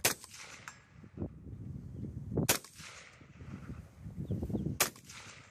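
AR-15 rifle fired three times, with the shots about two and a half seconds apart.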